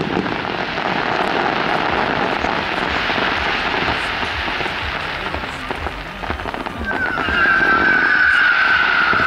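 Fireworks crackling and hissing, a dense patter of small cracks from falling crackle stars. About seven seconds in, a loud steady high whistle starts and holds, sinking slightly in pitch, as a fountain fires at water level.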